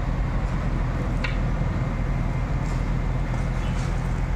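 JCB backhoe loader's diesel engine running steadily while its boom holds a lifted tree. A brief high sound comes about a second in.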